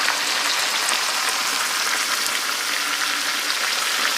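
Food frying in oil in a hot pan: a steady sizzle with fine crackles.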